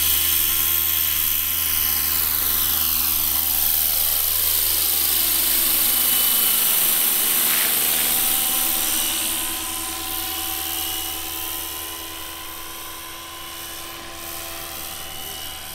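Electric-powered scale model SA-315B Lama helicopter taking off and climbing away: a steady whine of motor and rotor with several high tones. Loud for the first part, then fading over the last several seconds as it flies off.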